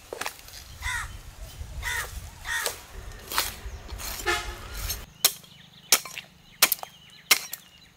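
Crows cawing several times. Then a cleaver chops mutton on a wooden block: five sharp chops about two-thirds of a second apart.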